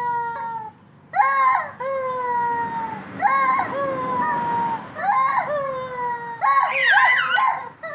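Rubber screaming-chicken squeeze toys squawking: about four long squawks in a row, each starting sharply and then held while slowly falling in pitch, with a more wavering squawk near the end.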